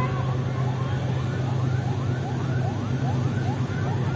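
GEU-20 diesel-electric locomotive approaching at the head of a passenger train, its engine giving a steady low drone. A short rising-and-falling tone repeats about three times a second over it.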